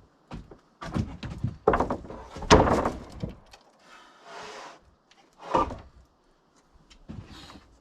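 Heavy 2-inch hard maple boards being set down and stacked: a run of wooden thumps and knocks, the loudest about two and a half seconds in.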